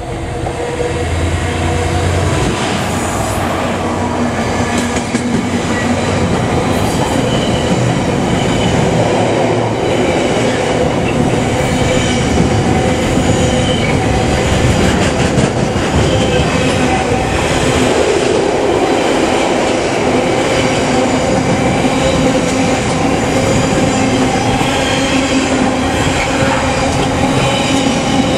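Freight train passing close by, its wagons rolling over the rails in a loud, continuous rumble and clatter with a few steady tones over it. It builds up over the first couple of seconds and then holds steady.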